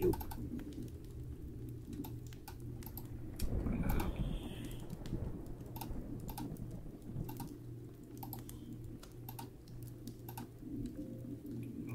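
Typing on a computer keyboard: irregular key clicks over a low steady hum, with a brief louder rustle about four seconds in.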